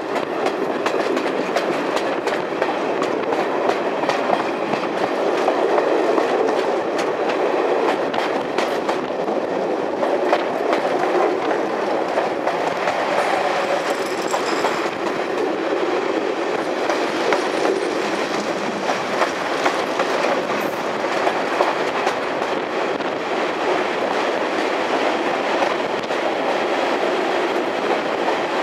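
Train running along the track: a steady rumble with light clicks from the wheels passing over the rails.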